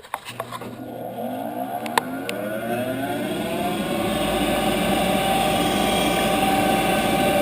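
Heil gas furnace's exhaust inducer blower motor starting up, its pitch rising for about four seconds as it spins up to speed, then running steadily with a whine. The owner takes the whine for a worn-out inducer motor.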